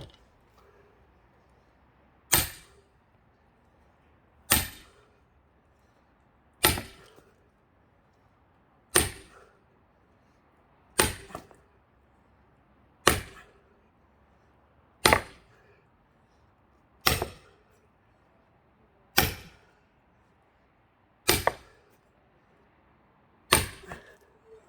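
Eleven heavy blows about two seconds apart, each a sharp crack, splitting a thick pine log with an axe head wedged in it.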